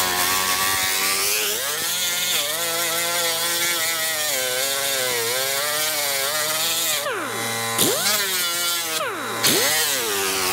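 Pneumatic angle grinder with a sanding disc roughing up a plastic bumper cover: a steady whine over air hiss, its pitch wavering as the disc is pressed into the plastic. About seven seconds in, and again near the end, it slows and spins back up.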